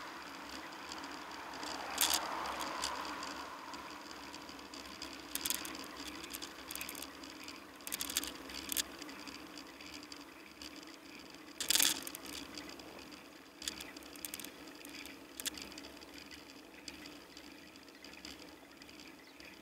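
A bicycle rolling along a road, with a steady tyre hum and irregular sharp rattles and knocks as it goes over bumps. Traffic noise from cars ahead fades away over the first few seconds.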